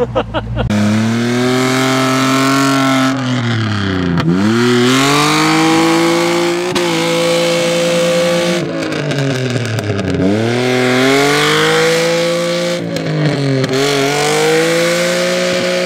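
An off-road 4x4's engine held at high revs under load, its pitch dropping sharply and climbing back three times as the throttle is eased and reapplied.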